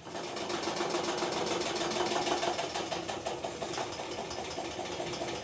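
Electrolux LTE06 6 kg washing machine starting its spin cycle: a fast, even clatter over a steady motor hum. This is the noise of the reported spin fault, in which the basket cannot spin properly.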